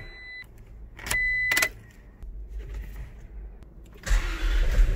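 Toyota Land Cruiser 70-series cab controls: the handbrake lever clicking, and an electronic warning beep sounding at the start and again about a second in. A louder, steady rush of noise starts about four seconds in.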